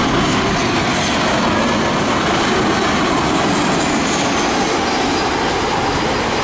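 Boeing 737-900ER's CFM56-7B jet engines running at low approach power as the airliner flares and lands: a loud, steady jet rush.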